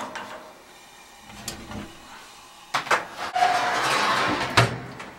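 Clicks and metal rattles at the gas oven of an old stove, then a stretch of rustling and the oven's metal door swung shut with a sharp clunk near the end.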